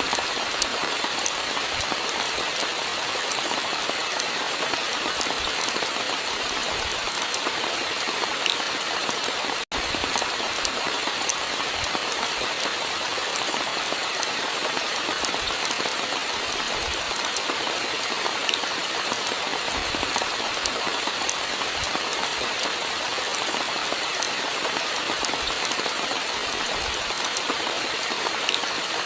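Steady rainfall with many small drop ticks over a dense hiss. It cuts out for a split second about ten seconds in.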